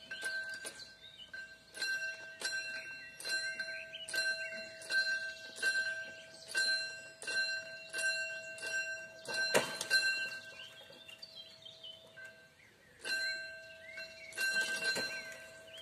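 Pre-ringing warning bell of a mechanical level-crossing barrier, struck about once every three-quarters of a second while the barrier arms are lowered; it pauses briefly about twelve seconds in, then starts again. One louder knock comes near the middle.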